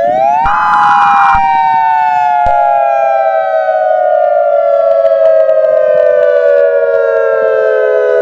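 Civil-defense-style siren wailing: its pitch rises quickly, then falls slowly. A short buzzy burst overlaps the rise near the start, and a second steady tone joins about two and a half seconds in.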